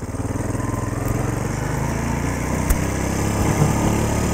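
Four-wheeler (ATV) engine running as it is ridden, heard close up and very loud, with wind noise on the microphone.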